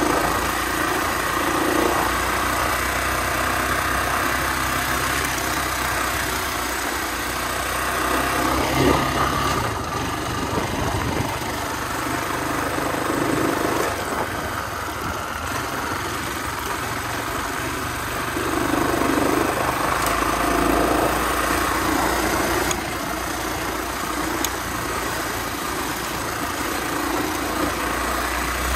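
Honda XR250R dirt bike's single-cylinder four-stroke engine running while riding, the revs rising and falling with the throttle, louder about a third of the way in and again past the middle.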